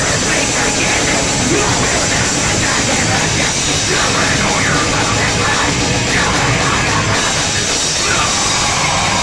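Live heavy metal band playing at full volume: distorted electric guitars, bass and drums in a dense, unbroken wall of sound, with a vocalist screaming over it.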